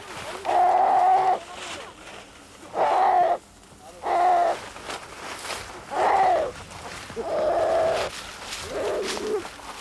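A roe deer crying out in distress as a Jindo dog seizes it: six loud cries, each under a second long and about every second and a half, some falling in pitch at the end.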